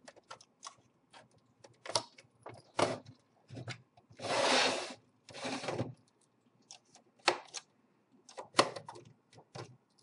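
Metal screwdrivers prying at the Xbox 360 Slim's plastic case to release the clips of its chrome trim plate: scattered clicks and knocks, with two longer scrapes about four to six seconds in.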